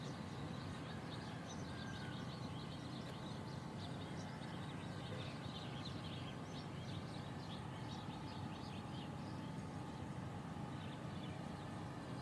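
Many small birds chirping in quick, short notes over a steady low background rumble, the chirping thinning out near the end.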